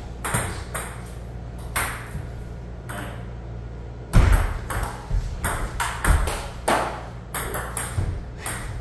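Table tennis ball clicking off paddles and table during a rally, sharp irregular knocks about two a second, with one heavier thump about four seconds in.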